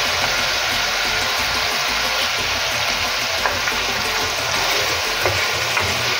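Ground beef and carrots sizzling steadily in a frying pan as diced potatoes are tipped in and stirred with a spatula, with a few light clicks of the spatula.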